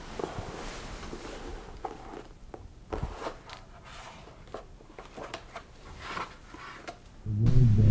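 Soft rustling of bedding with scattered small clicks and taps. Music comes in, much louder, near the end.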